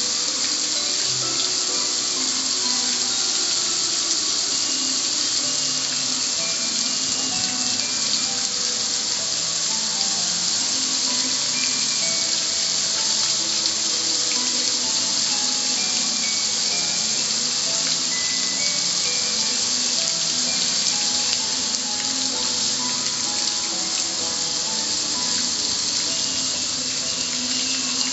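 Garden hose pistol-grip spray nozzle jetting water onto a metal gas grill's lid and front panel: a steady hiss of spray.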